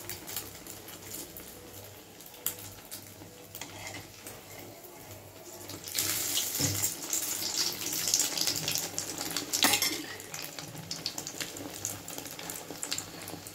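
Egg-battered bread slice deep-frying in hot oil in an aluminium kadai: a steady sizzle that grows louder for a few seconds in the middle while a slotted spoon stirs the oil, with light clinks of the spoon against the pan.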